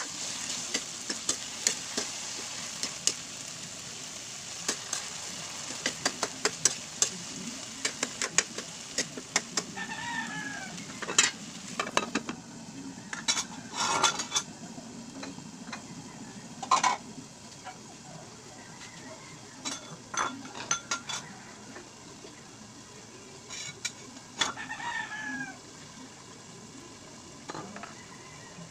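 Chayote and cabbage stir-frying in a metal wok: a steady sizzle with the metal spatula clinking and scraping against the pan. About halfway through there are several louder metal clanks as the aluminium lid goes on, and the sizzle then goes on quieter under it. A chicken calls twice in the background.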